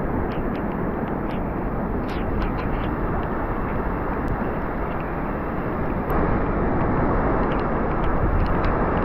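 Steady roar of wind and surf on an open beach as a storm comes in, with a few faint clicks. It grows a little louder about six seconds in.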